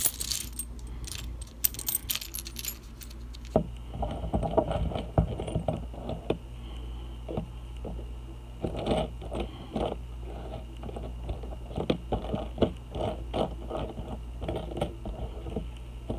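Small metal charm pendants clinking and jangling against each other as a hand spreads and sorts them on a cloth mat. A dense run of clicks comes in the first few seconds, then scattered clinks and short clusters follow.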